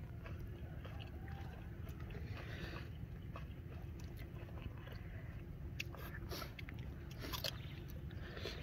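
A person eating shrimp: biting and chewing, with scattered crunchy clicks that come thickest about six to seven and a half seconds in, over a steady low rumble.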